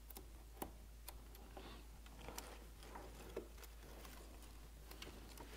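Faint, scattered small clicks and soft crinkles of a printed adhesive label being peeled from its backing and pressed onto a plastic panel by hand.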